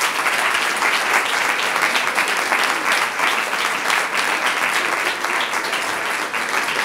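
A large audience applauding, a steady dense clapping.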